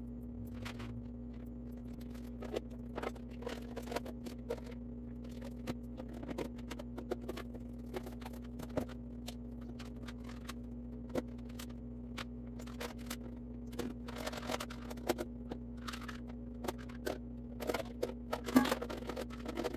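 Plastic food-storage bowls and lids clacking and knocking as they are handled and stacked, in scattered light knocks that grow busier near the end, over a steady low hum.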